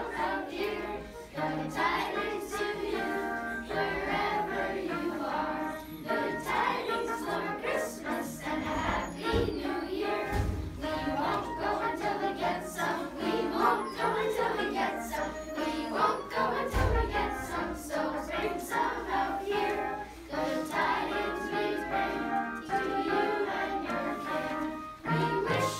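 Children's choir singing a Christmas carol together from song sheets, with no instruments.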